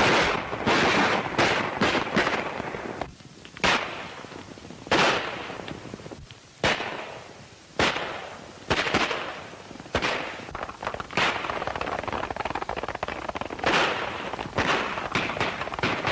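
Gunshots on an old film soundtrack: about a dozen sharp, irregularly spaced shots, each with a short echoing tail, over the continuous clatter of galloping horses' hooves.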